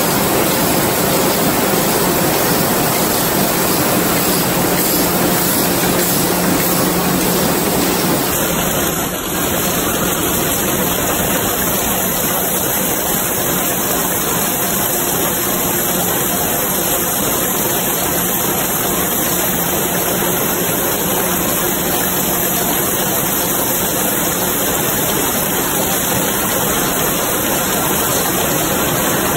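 Rows of high-speed punch presses stamping brass strip into hollow plug pins, all running at once as a loud, steady mechanical din in which no single stroke stands out. The sound shifts slightly a little after eight seconds in.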